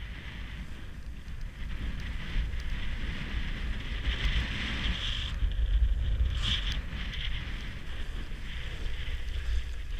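Wind buffeting the microphone while skis hiss and scrape over groomed, packed snow, with a brief sharper scrape about six and a half seconds in.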